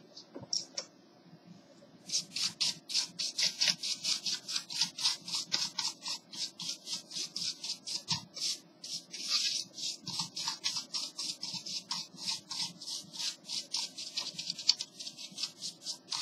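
A brush scrubbing the opened HP 6530b laptop's casing with quick back-and-forth strokes, several a second, starting about two seconds in and going on without a break.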